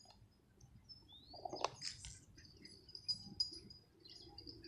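Faint high bird chirps and thin whistles, one of them rising, with a single light tap about one and a half seconds in.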